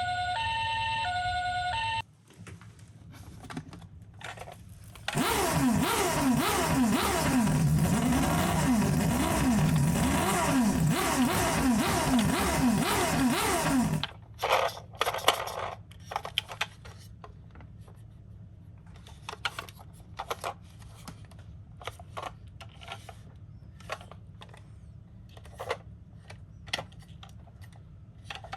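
Toy ambulance's electronic two-tone hi-lo siren alternating for about two seconds, then faint clicks. From about five seconds in, a loud noisy din with several overlapping wavering electronic siren tones runs for about nine seconds and cuts off; after it come scattered clicks and clacks of the plastic toy cars being handled.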